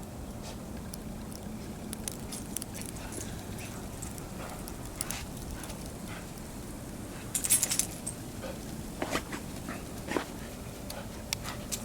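Dogs playing in the snow, making a few short sounds over a steady background hiss, with the loudest brief burst about seven and a half seconds in and a few more short sounds near the end.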